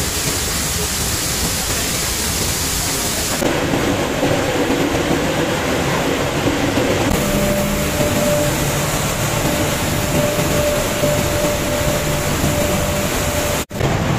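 Loud, steady din of flour-mill machinery running. The sound changes abruptly about three and a half and seven seconds in, a steady whine runs through the middle part, and it drops out briefly near the end.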